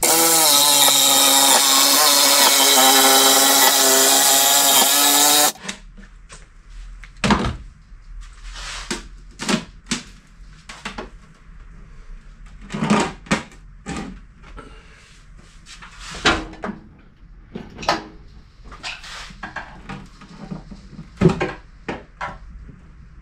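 Cordless jigsaw running at a high, steady whine for about five and a half seconds as it cuts close to the edge of a cabinet panel to sever the brad nails holding it, then stops abruptly. Scattered knocks and clatters follow as the cut panel is handled and worked loose.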